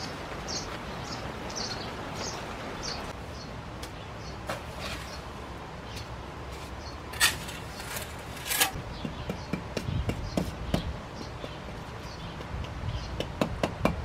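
Birds chirping in short repeated calls for the first few seconds. Then two sharp knocks, the loudest sounds. After that a trowel clicks and scrapes repeatedly as mortar is spread on a brick, with soft thuds as the brick is handled.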